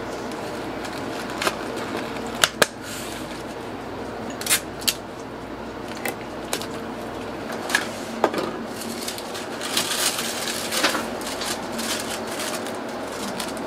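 Clear plastic sandwich container being handled and its lid pressed shut: a scattered string of sharp plastic clicks and crackles, with a crinkling stretch a little after the middle, over steady room noise.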